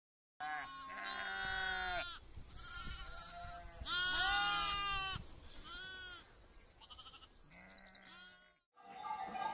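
Sheep and lambs bleating, many overlapping calls high and low. The calls stop abruptly near the end.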